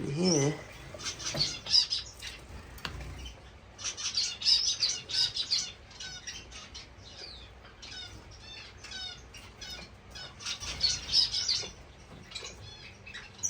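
Small cage finches chirping with short, high calls, broken three times by bursts of wing fluttering.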